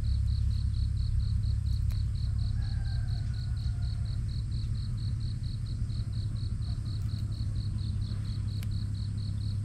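A cricket chirping in an even, high pulse about four times a second, over a steady low rumble.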